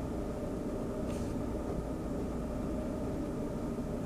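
A steady low hum with a few faint steady tones, and a brief soft hiss about a second in.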